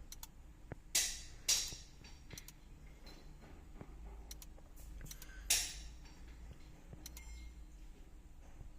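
Three sharp taps: two close together about a second in and one more about halfway through, with a few faint ticks between.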